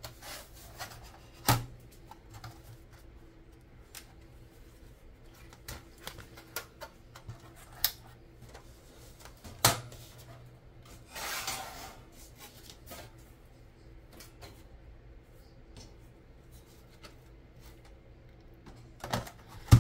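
Handling noise from a Commodore 128 circuit board in its metal shielding being lifted, shifted and set down on a workbench: scattered clicks and knocks, a short scraping rub near the middle, and a loud knock near the end, over a faint steady hum.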